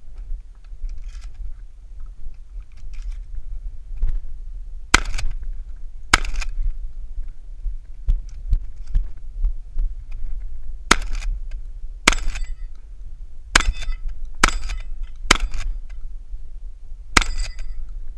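Shotgun firing birdshot, eight sharp shots in all. Two come about a second apart, then after a pause six more follow over about six seconds at an uneven pace. A steady low rumble runs underneath.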